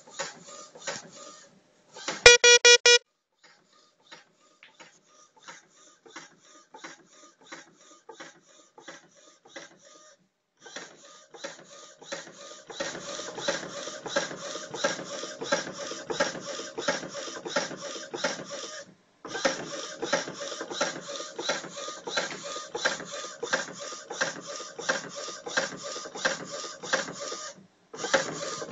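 Epson WorkForce 30 inkjet printer, converted to a flatbed, printing: its print head carriage shuttles back and forth in a fast, even clatter, with three brief pauses. The clatter is quieter at first and louder from about twelve seconds in. About two seconds in, a short run of four loud pitched beeps sounds over it.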